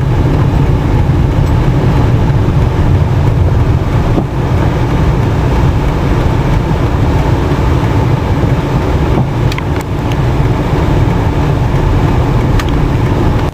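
A car driving, heard from inside: a steady low rumble of engine and road noise, with a few faint clicks near the end.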